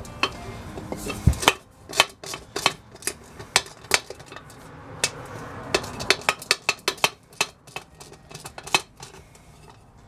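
Metal parts being handled and knocked together: irregular sharp clinks and taps, some in quick runs of several.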